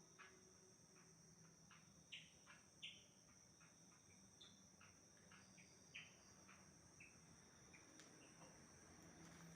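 Faint night insects: a steady high-pitched trill with short chirps scattered irregularly over it, about two or three a second, over a faint low hum.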